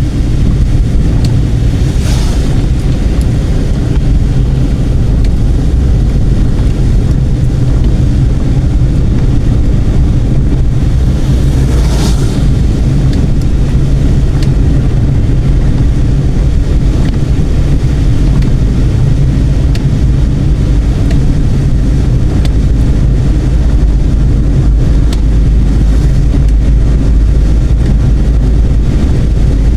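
Car driving along the road: a steady, loud low rumble of engine and tyres, with a brief rushing sound about two seconds in and again about twelve seconds in.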